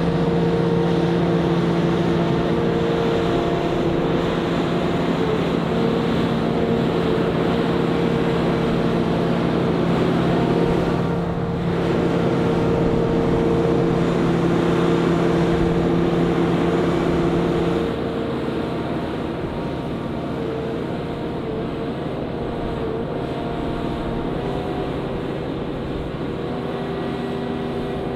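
Diesel engine of a self-propelled modular transporter running steadily under load, a constant hum with several steady tones. About eighteen seconds in it gets quieter and its note changes.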